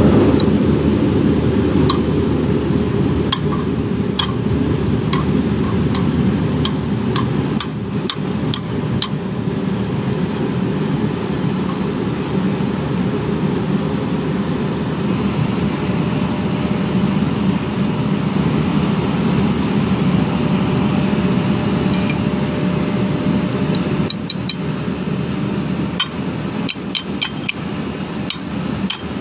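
Steady loud machine running throughout, with scattered light metallic clinks and taps, several in quick runs near the start and again near the end, typical of metalwork with hand tools.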